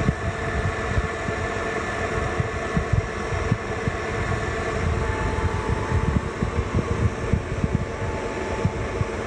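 Kearney & Trecker 3CH horizontal milling machine running under power, a steady gear whine over a rough, uneven rumble.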